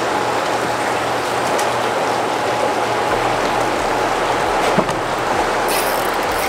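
Steady rush of water pouring over a dam spillway, with a faint steady hum underneath.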